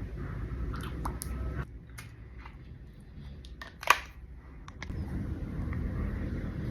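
A man snoring: a low rumbling snore that fades out about a second and a half in and builds again near the end. Several small clicks in between, with one sharp click about four seconds in.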